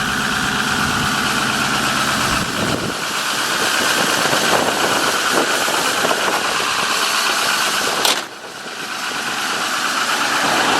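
Turbo-diesel engine of a Ford F-450 running steadily at high idle, with a sharp click about eight seconds in, followed by a brief dip in level that builds back up.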